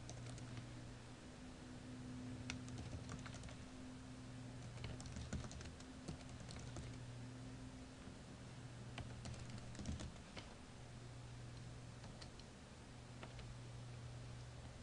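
Computer keyboard typing: irregular, scattered keystrokes as a terminal command is typed, over a steady low hum.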